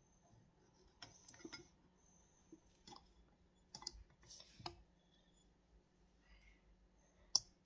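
Plastic spoon tapping and scraping against a ceramic bowl of carrot pieces, a scattering of light clicks, with one sharper click near the end.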